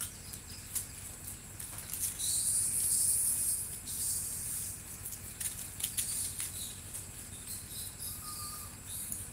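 Outdoor forest ambience: a high hissing buzz that swells for about two seconds near the start, a few short high chirps, one brief note about eight seconds in, and scattered light clicks over a steady low hum.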